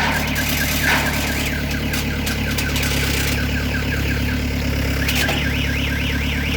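Bobcat skid-steer loader's engine running steadily. A warbling alarm tone rises and falls over it again and again, coming and going.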